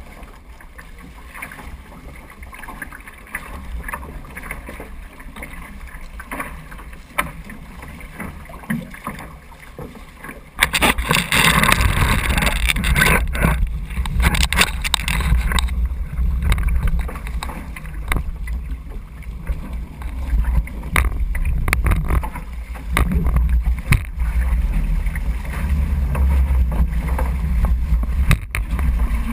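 Water rushing and splashing past the hull of a Weta trimaran under sail, mixed with wind buffeting a bow-mounted microphone as a low rumble. About ten seconds in it jumps to a much louder rush and stays there.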